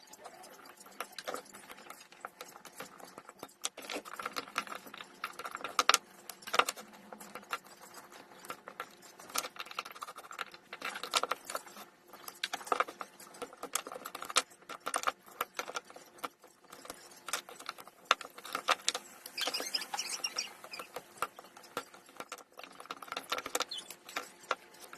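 Irregular small metallic clicks, snaps and scrapes as hand tools pry and tear the spot-welded nickel strips off the lithium cells of a Dongcheng power-tool battery pack, with a longer scratchy scraping stretch near the end.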